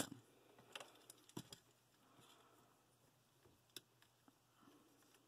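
Faint clicks and taps of a plastic Transformers action figure's joints and panels being turned and folded by hand: a louder click right at the start, then a few scattered ones over near silence.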